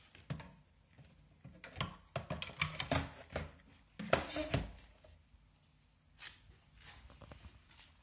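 Plastic clicks and knocks of a cordless stick vacuum being handled at its wall-mounted charging dock, a quick run of rattling taps with the loudest about four seconds in.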